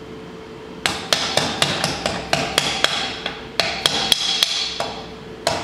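Cylinder jug of a Polaris 700 twin being worked down over the pistons and rings onto the crankcase: a rapid run of sharp metallic knocks and clinks, about three a second, each ringing briefly, starting about a second in.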